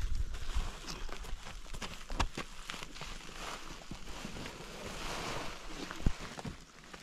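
Woven sacks of chopped fodder rustling and scraping as they are handled and heaved onto a pack donkey's back, with scattered knocks and one sharp thump about six seconds in.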